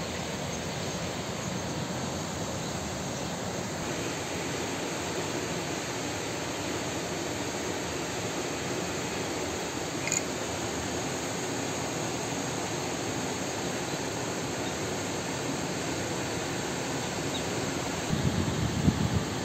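Steady, even rushing background noise, with a single faint click about ten seconds in and a few low bumps near the end.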